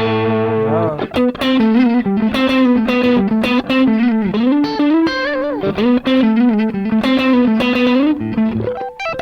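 Electric guitar played through a Valkyrie overdrive pedal set to a light, still-clean-sounding drive with the gain up and extra treble. It opens on a held chord, then plays a funk-style passage of single-note and double-stop licks with bends and vibrato.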